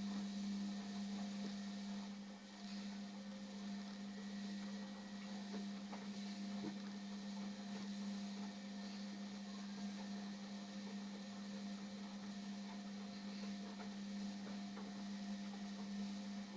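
Indesit washing machine giving a steady electric hum with a light hiss at the start of its wash cycle, which cuts off suddenly near the end.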